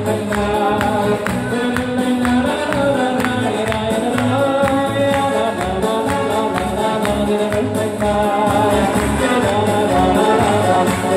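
Hasidic wedding music played by a band, a singer carrying the melody over a steady, quick beat.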